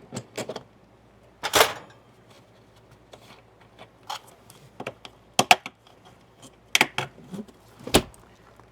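Irregular metallic clicks and knocks, with a brief rattle about one and a half seconds in, from working an old, corroded factory compartment lock loose from an RV storage hatch door.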